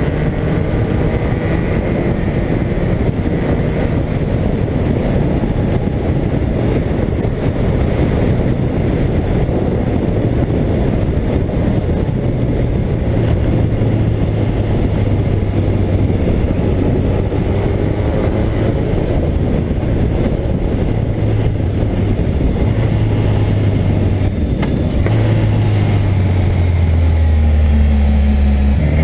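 Suzuki GSX1400's inline-four engine running at a steady cruise, under a heavy rush of wind over the microphone. Near the end the engine note breaks briefly and then drops lower in pitch.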